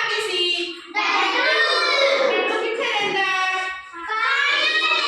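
Children's voices singing, in long drawn-out phrases.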